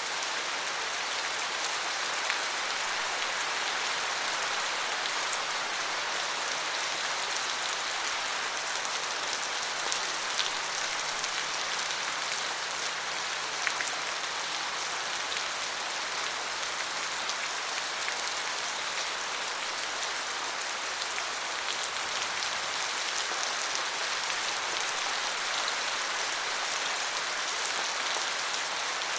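Steady rain falling on a surface, an even hiss with individual drops pattering through it.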